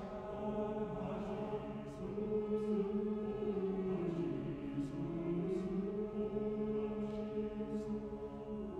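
Mixed choir singing a cappella in sustained, slowly shifting chords, with crisp hissing 's' consonants several times.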